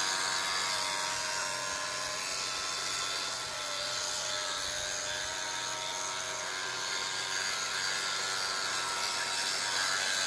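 Small electric motors of radio-controlled toy boats running on the water, giving a steady whine.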